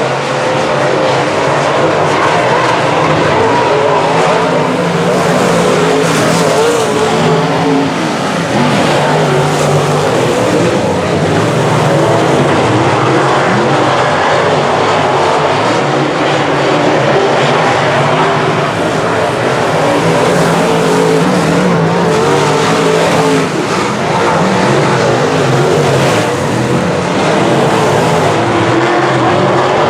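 A field of semi-late model stock cars racing, several engines running hard together with their pitch rising and falling as the cars accelerate and lift around the track.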